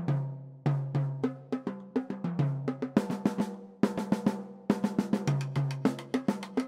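Marching drum line playing a cadence: crisp snare drum strokes and rolls over tuned bass drums sounding different pitches, in a steady driving rhythm.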